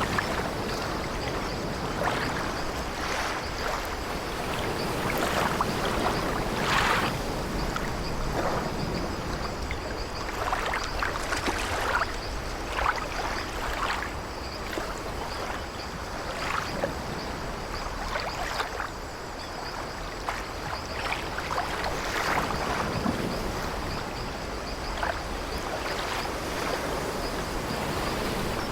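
Sea waves washing and splashing against an old wooden sailing ship, with the creaking of its timbers, in an irregular steady wash.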